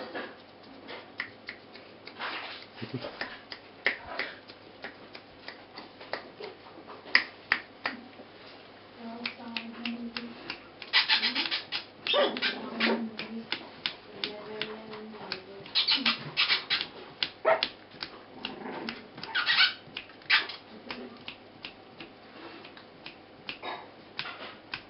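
Four-week-old Border terrier puppies playing, giving short growls and high yips and squeals now and then, over a run of small clicks and scuffles.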